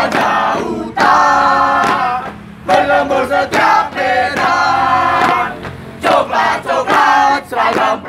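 A group of young voices chanting a cheer in unison, half sung and half shouted, in phrases of about a second each with short breaks between them.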